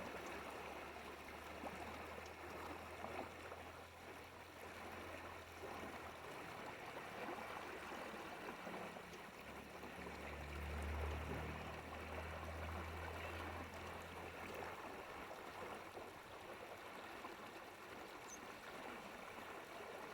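A stream of running water babbling and trickling steadily. A low hum comes and goes underneath, strongest about halfway through.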